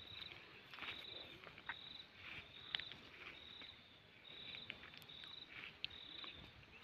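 Faint insect chirping: short, high, pulsed chirps repeating a little more than once a second, with scattered faint clicks and rustles.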